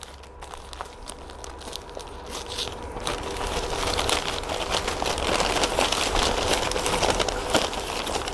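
Newspaper wrapping crumpled and crinkled as it is pulled off a plant pot. The crackling is irregular and gets denser and louder after about three seconds.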